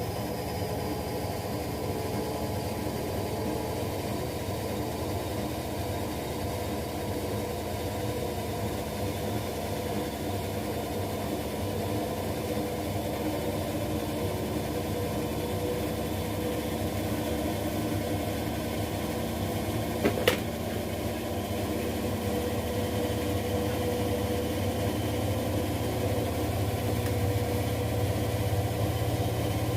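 Two front-loading washing machines, an LG Centum and a Zanussi, spinning together: a steady motor and drum whir with a fixed hum that grows slowly louder, and one sharp click about two-thirds of the way through.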